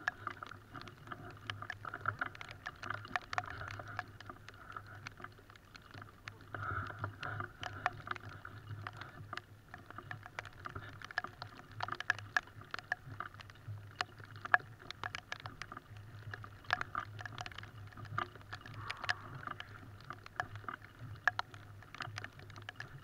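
Scattered light ticks and taps, several a second at irregular intervals, over a faint steady low hum.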